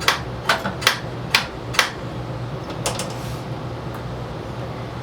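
A quick series of sharp clicks and taps, about five in the first two seconds and two more near three seconds in, from hard parts and tools being handled during reassembly of a snowblower's controls. A steady low hum runs underneath.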